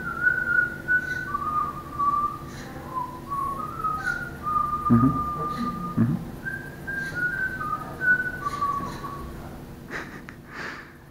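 A whistled tune from a dancing chair installation: clear single notes, each held briefly, stepping up and down in pitch. It comes with occasional knocks as the chair's legs move, and the tune stops a little before the end.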